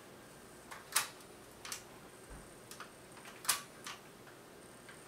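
Sharp mechanical clicks from a Panasonic RX-F5 cassette deck as its transport keys and mechanism are worked by hand, about five clicks spread over a few seconds, the loudest about a second in and about three and a half seconds in.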